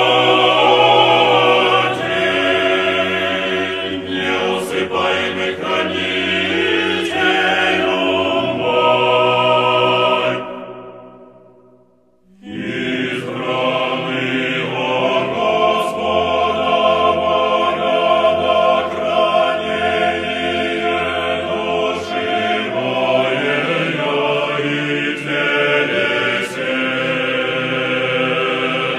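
Orthodox church choir singing chant in several voices; the singing fades out about ten seconds in, there is a moment of silence, and then the choir begins again.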